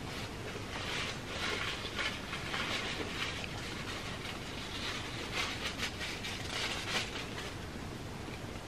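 Eating sounds close to the microphone: chewing and wet mouth smacks in irregular clusters, over a steady background hiss.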